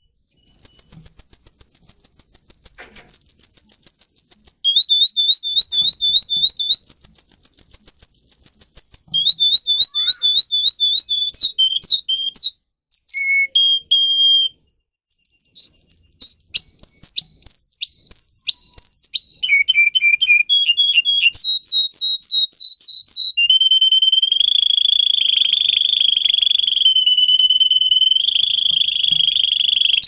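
Canary singing a chain of fast trills, each phrase a few seconds of quickly repeated notes at one pitch before jumping to a higher or lower one. Near the end it settles into one long unbroken rolling trill.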